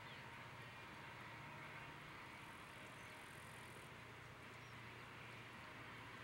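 Freight cars of a passing train rolling by, a faint steady rumble and rush of steel wheels on the rails.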